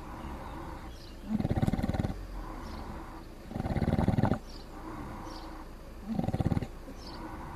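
Pig snoring, fast asleep: three loud, rattly snores about two seconds apart, with quieter breathing between them.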